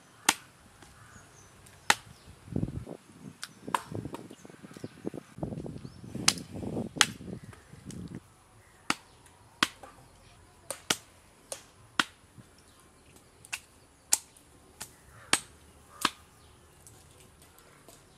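Cleaver chopping raw turkey on a wooden tree-stump block: a series of sharp strikes at irregular intervals, roughly one a second, with softer handling noises between the strikes in the first half.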